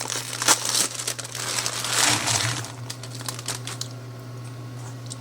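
Crinkling plastic wrapper of a pack of vanilla wafers being handled and opened: scattered sharp crackles, with a louder rustle about two seconds in. A steady low hum lies underneath.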